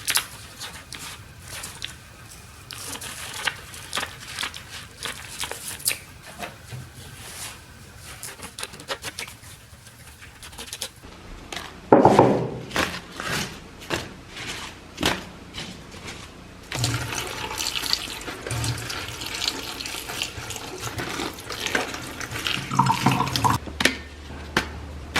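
Water splashing and running, with many short knocks and clatters of things being handled, and a loud splash or clatter about halfway through.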